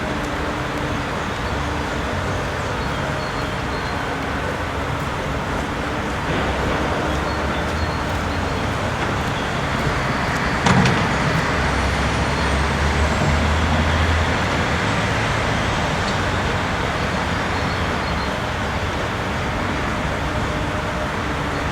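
Steady rumble of diesel vehicles and construction machinery, with one sharp knock about halfway through.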